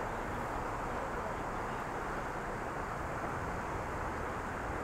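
Steady rushing of flowing creek water, an even noise with no distinct events.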